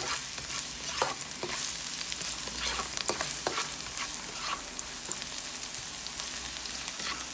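Minced garlic sizzling in hot oil in a wok as it is sautéed toward browning, with a spatula scraping and tapping the pan every second or so as it is stirred.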